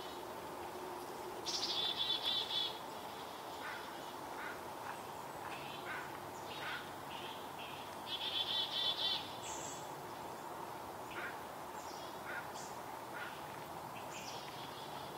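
Chickadee scolding: two runs of rapid, buzzy repeated notes, about a second and a half in and again about eight seconds in, with scattered short chips between them.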